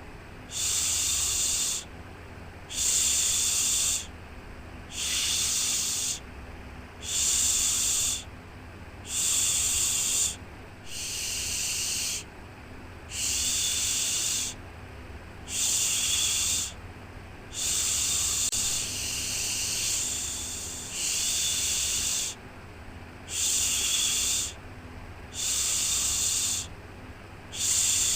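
Repeated 'shhh' shushing, a soothing sound for lulling a baby to sleep. Each hiss lasts a bit over a second and comes about once every two seconds, with a softer, longer one midway, over a faint steady low hum.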